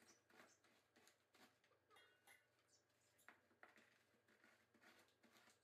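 Very faint, irregular crackling of graham crackers being crushed under a wooden rolling pin through a cloth.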